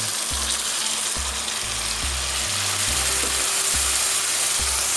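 Marinated mutton pieces sizzling steadily in hot mustard oil with onions in a frying pan, just after being tipped in.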